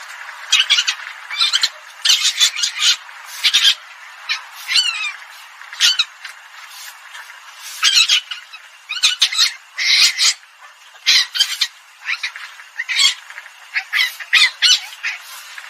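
Recorded civet lure call playing: short, harsh squawking calls repeated irregularly, some in quick clusters of two or three, over a steady background hiss.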